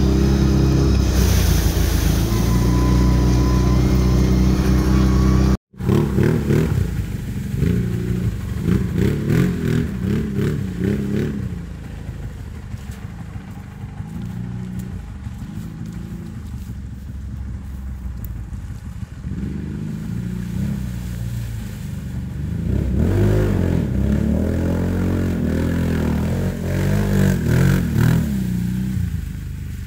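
Engine of a small off-road vehicle running under way, its revs rising and falling, with stronger revving near the end. An abrupt cut about six seconds in, after a steady droning sound, starts the engine section.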